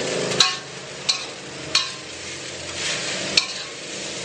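Metal spatula stirring and scraping fried rice around a metal wok over a soft sizzle of frying, with a few sharp clinks of the spatula against the pan.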